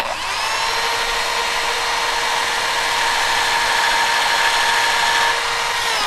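Power drill with a small bit boring a pilot hole for a nail into OSB board: a steady motor whine that spins up at the start and stops just before the end.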